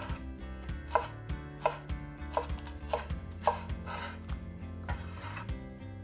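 Cleaver chopping green onions on a bamboo cutting board: separate sharp knocks of the blade hitting the board, about one or two a second, with a brief rustle about four seconds in.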